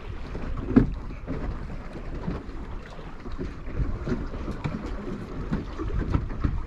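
Wind buffeting the microphone and water slapping the hull of a small open fishing boat at sea, with irregular knocks and one louder thump just under a second in.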